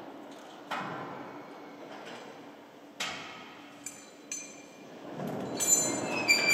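Metal tools working on a bolted steel transport frame: a few sharp knocks and clinks spaced a second or more apart, then a louder clatter with a clear metallic ringing near the end.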